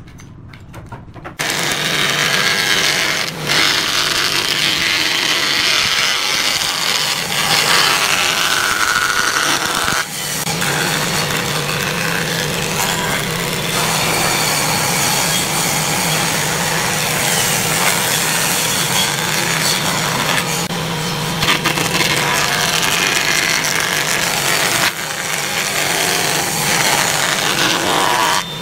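Jointer planing a pine board. From about a second in, the motor hums steadily under a loud, even cutting noise from the cutterhead, with brief dips between passes.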